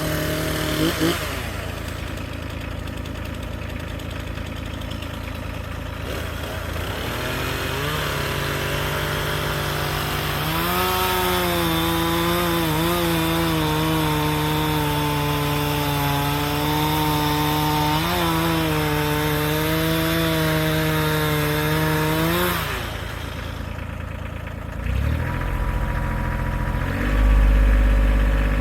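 Chainsaw bucking a cedar log to length. It runs unevenly at first, then holds at full throttle for about twelve seconds with slight dips in pitch as it works through the cut, and drops back. Near the end a deeper, heavier engine starts running.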